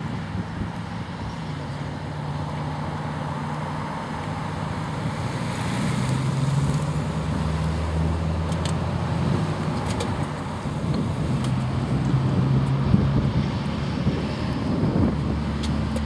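Patrol car engine running close by as the car pulls up, its low hum dropping in pitch about halfway through and settling to an idle, with road traffic behind.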